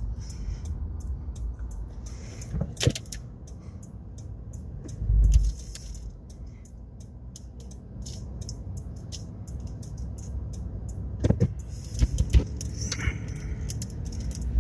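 Car driving slowly, heard from inside the cabin: a steady low rumble with many small clicks and rattles, and a heavier low thump about five seconds in.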